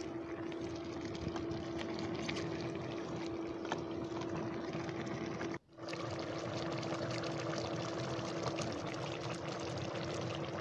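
Chicken curry simmering in a steel pot on an induction cooktop: a steady bubbling hiss of the gravy, with a steady low hum from the cooktop underneath.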